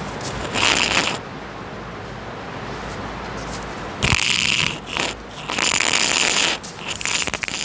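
Chalk scratching on a blackboard briefly about half a second in. From about four seconds in, louder scraping, rattling bursts of handling noise follow, with a steady hiss underneath.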